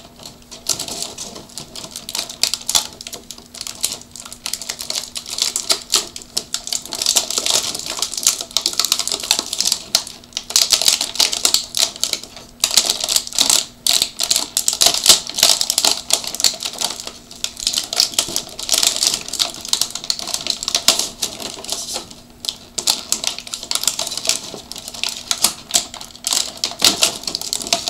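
Thin clear plastic blister packaging crinkling and crackling in dense, irregular clicks as hands flex the tray and pop plastic toy figures out of it, with a few brief lulls.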